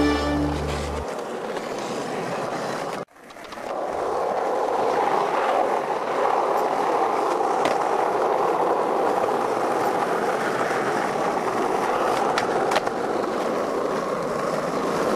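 Skateboard wheels rolling on asphalt: a steady rolling noise with a few light clicks. The sound cuts out briefly about three seconds in, then the rolling carries on.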